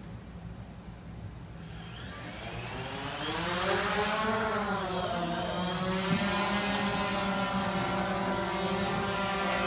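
Small quadcopter drone's electric motors and propellers spinning up for takeoff. A high whine starts about a second and a half in, then the propeller buzz rises in pitch as the drone lifts off and settles into a steady hover.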